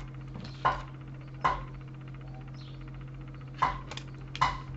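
Tarot cards being drawn and laid down on a table: about five short, sharp taps at uneven intervals.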